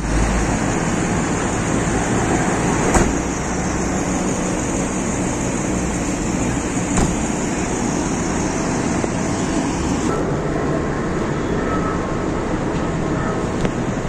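Street traffic and idling vehicle noise, a steady loud rumble and hiss, with a short knock about three seconds in and another about seven seconds in; the high hiss eases about ten seconds in.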